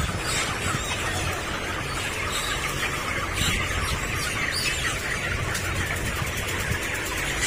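A large flock of 31-day-old broiler chickens squawking and squealing as they are caught and crated for harvest, with short high-pitched squawks at irregular intervals over a steady low hum.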